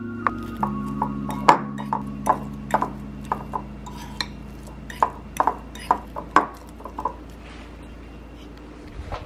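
Metal fork clinking and tapping against a ceramic bowl while mashing avocado: irregular sharp clinks that stop about seven seconds in.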